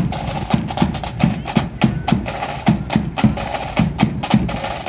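Marching band drums beating a steady march: bass drum thuds about two to three times a second under sharp, crisp snare strokes.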